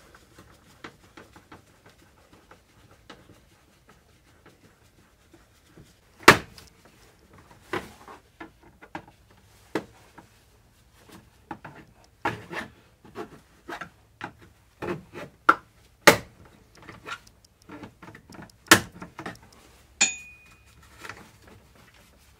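Plastic interior trim panels on a Can-Am Maverick X3's centre console being worked loose with a screwdriver and by hand: scattered clicks and rubbing, with a few sharp knocks as the panels come away, and a brief high squeak near the end.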